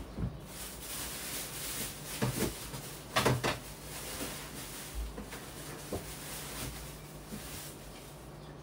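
A few knocks and rattles of things being handled and set down, the loudest cluster about three seconds in, over a faint steady hum.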